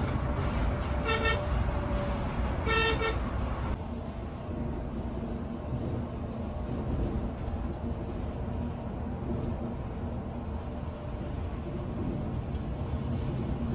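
Two short blasts of a vehicle horn about a second and a half apart, the second a little longer, over the steady engine and road rumble of a Volvo 9600 sleeper coach driving on the highway, heard from inside its front cabin.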